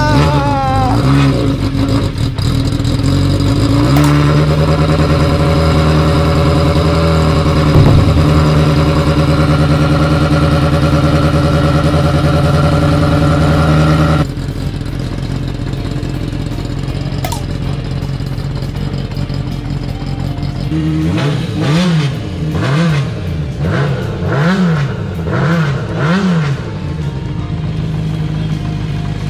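Kawasaki Zephyr 400χ's air-cooled inline-four engine running steadily just after starting on a freshly fitted battery. About halfway through it drops quieter, and near the end the throttle is blipped about five times, the revs rising and falling each time.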